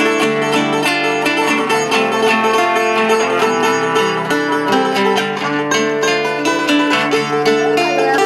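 Live acoustic music: a small round-bodied plucked string instrument and an acoustic guitar play a fast run of picked and strummed notes over sustained chords.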